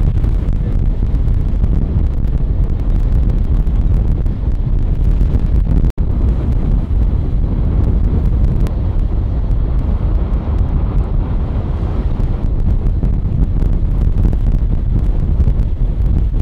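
Wind buffeting the microphone in a steady low rumble, with a brief break about six seconds in.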